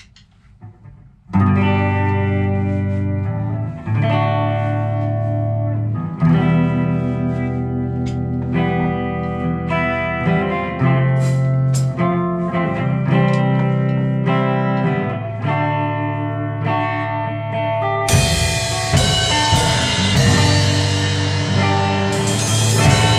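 Electric guitar through an amplifier, coming in about a second in with held chords and notes that change every second or two. Near the end a drum kit joins in with cymbals.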